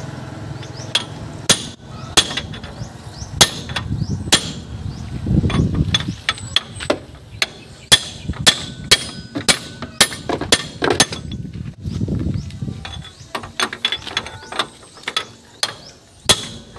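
Steel hammer blows on the seized inner bearing cone of a FAW six-wheeler truck's front wheel spindle, driving off the failed bearing. Sharp metallic strikes that ring, in an uneven rhythm of roughly one or two a second.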